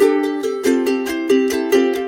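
Background music: bright plucked-string notes in a steady rhythm.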